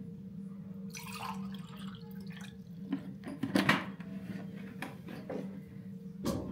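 Water poured from a large plastic jug into a drinking glass, splashing in the glass. A few sharp knocks come about three and a half seconds in, and a thump near the end.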